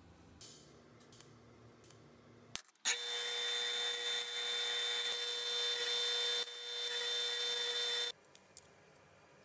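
Bench disc sander running with a steady whine as a metal strip is ground against its abrasive disc. It starts about three seconds in, dips briefly partway through, and stops abruptly near the end. Before it there is only a faint hum and a few light clicks.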